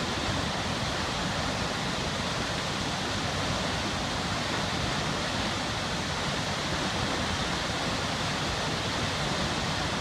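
Toketee Falls, a tall waterfall plunging into a deep pool, making a steady, even rush of falling water.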